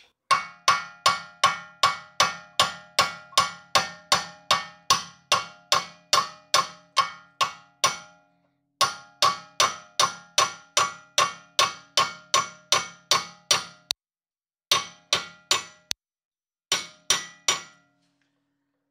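Hammer blows on a brass drift against the end of a Tesla drive axle shaft, knocking the stuck shaft loose from the wheel hub's splines. The ringing metallic strikes come about three a second, in runs broken by three short pauses.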